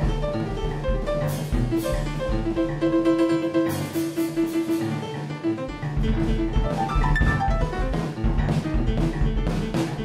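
Free-jazz duet of acoustic piano and drum kit: busy piano lines over drums and cymbals. The drums thin out for a couple of seconds in the middle, leaving the piano to repeat a held note.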